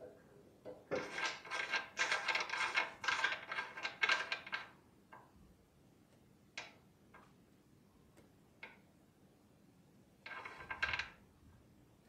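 Hands adjusting a manual screen printing press: several seconds of clattering and clicking of its metal parts and knobs, then a few single clicks, and a short rubbing scrape near the end.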